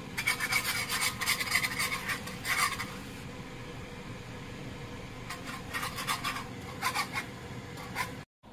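Wire whisk scraping quickly back and forth against a honeycomb-textured stainless pan as flour is whisked into bubbling butter to make a roux. There are two spells of rapid strokes, the second starting about five seconds in, over a steady low sizzle.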